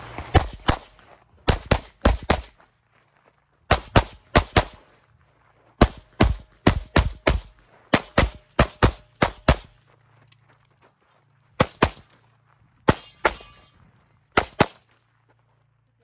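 Rapid semi-automatic pistol fire during a timed competition stage: about thirty sharp shots, mostly in quick pairs, in strings separated by short pauses. A shot near the end is followed by a brief metallic ring.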